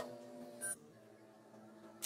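Steady low electrical hum with a sharp click at the start and a brief, sharp knock about three-quarters of a second in, after which the hum carries on more faintly.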